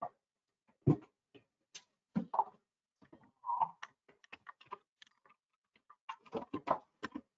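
Irregular clicks and taps with a few dull knocks, the loudest about a second in and just after two seconds: handling noise from someone working at a computer desk while setting up a screen share.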